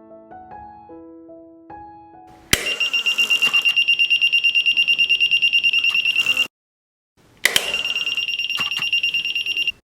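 Soft piano music, then a click and a homemade electronic door alarm's buzzer sounding a loud, high, fast-pulsing tone. It cuts off suddenly, stays silent for about a second, then sounds again for about two seconds.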